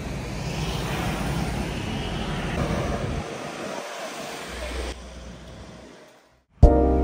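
Road traffic passing: a steady, even whoosh of vehicle noise that fades away. Background music starts abruptly near the end.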